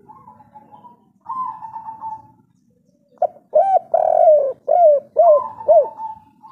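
A spotted dove cooing. Soft coos come first; then from about three seconds in comes a loud phrase of arched coo notes, with a longer note in the middle and three short notes to close, as in the kuk-3 song type.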